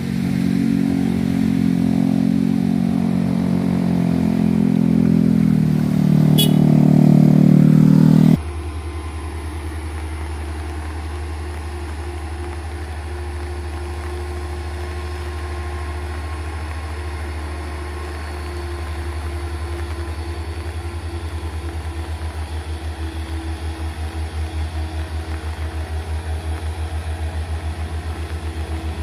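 A small car's engine pulling hard uphill as it passes close by, cut off abruptly about eight seconds in. Then the low, pulsing drone of a loaded Hino truck's diesel engine labouring up a steep hairpin grade, growing stronger near the end.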